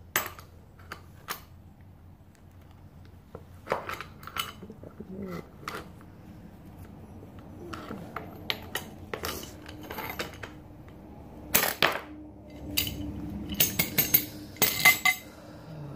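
Hammer striking a bicycle seat and seat post, a series of irregular metallic clanks and clinks, getting louder and more frequent near the end.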